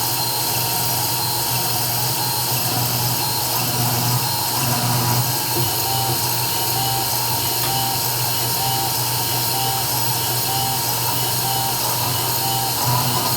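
CNC 3040 engraving router running steadily: the spindle motor's constant whine and hum, with the stepper motors moving the axes and a short tone repeating about once a second as the bit engraves.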